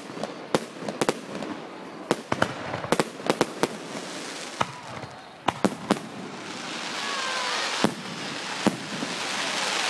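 Aerial fireworks bursting overhead in a rapid string of sharp bangs. From about six seconds in, a dense, rising crackle builds, with two more bangs near the end.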